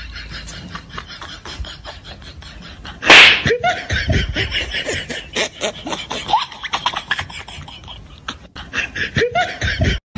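A sudden, very loud burst of noise about three seconds in, followed by repeated laughter broken up by short, sharp smacks.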